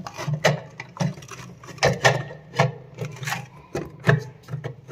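Irregular clicks and knocks of concealed-cistern internal parts being handled and snapped into place by hand, about one every half second to second, over a low steady hum.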